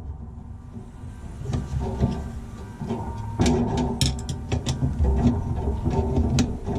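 Hand tools and metal washer clutch parts clicking and knocking as they are handled, sparse at first and more frequent from about halfway through.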